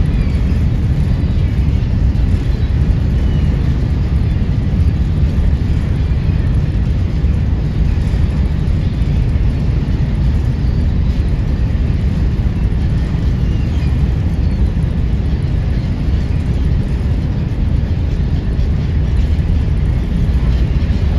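Steady, even low rumble of a ferry under way, with no distinct tones or events.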